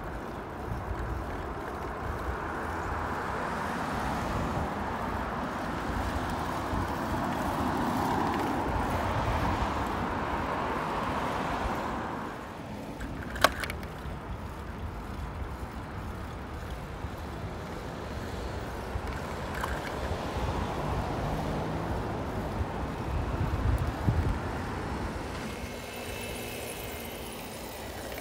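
Road traffic on a wide city road: car tyre and engine noise swells over the first ten seconds and fades at about twelve seconds, over a steady low rumble. A single sharp click about halfway through, and a faint high tone near the end.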